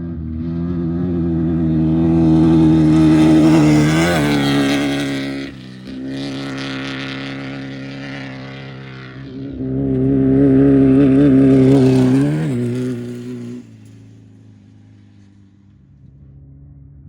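Off-road race vehicles passing at speed one after another, engines running hard and rising in pitch as each goes by, then fading to a quieter engine note.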